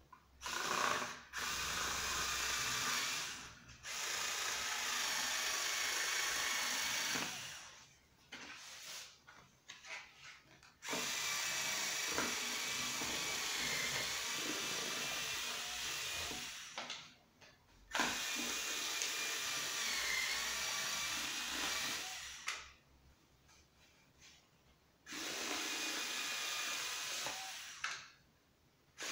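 Small PROTECO 3.6 V Li-ion cordless screwdriver with a rotary paper-cutter head, its motor whining in five runs of a few seconds each with short pauses between, as the spinning cutter cuts thin cardboard and paper. A few small handling clicks and rustles fill one pause about eight seconds in.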